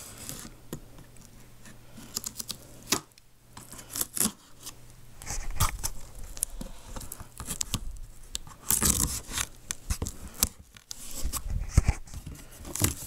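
Utility knife slitting the filament strapping tape along a cardboard box's seam, with cardboard tearing and scraping and scattered handling clicks, busiest in the second half.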